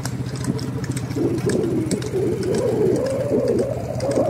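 A vehicle engine runs steadily under the scene. From about a second in, a loud wavering, pitched call or hum bends up and down and becomes the loudest sound.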